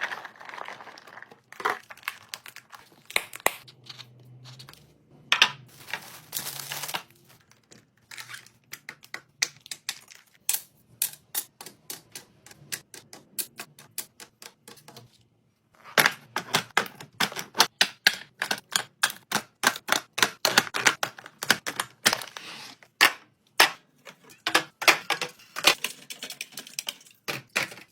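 Rapid, irregular clicks and taps of containers and packaged food items being handled and set down while restocking a fridge and pantry, with short rustles of packaging in the first several seconds. The clicking grows densest in the second half.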